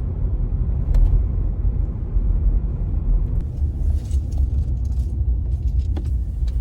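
Steady low vehicle rumble with a few light clicks.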